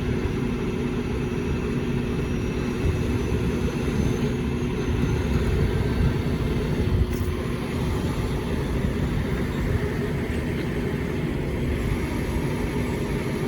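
Heavy trucks' diesel engines running steadily during a heavy lift: a low rumble with a steady hum.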